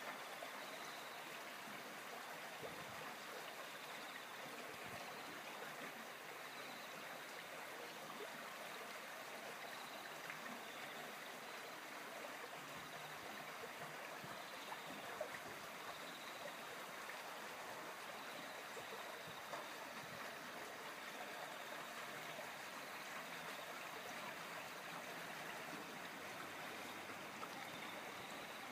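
Steady rushing of a flowing stream, with a faint high tone that comes and goes.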